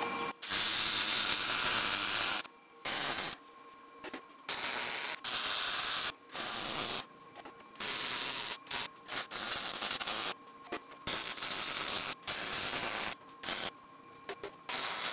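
Wire-feed welder's arc sizzling on 1/8-inch mild steel plate in a string of about a dozen short welds, each half a second to two seconds, stopping and starting. These are short stitch welds jumped from place to place to spread the heat so the steel does not warp.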